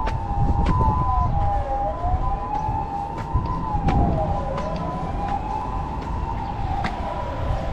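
Two emergency-vehicle sirens sounding together over city traffic. One is a two-tone hi-lo siren switching between a high and a low note about every half second. The other is a wailing siren that falls and rises about every three seconds.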